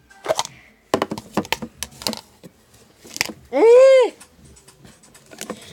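A phone being handled, with a string of clicks and knocks in the first few seconds. About three and a half seconds in comes a loud, high-pitched voice cry lasting about half a second, rising then falling in pitch.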